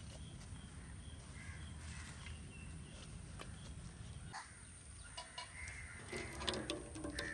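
Crows cawing in the background, with a few short harsh calls about six seconds in, over a low steady rumble.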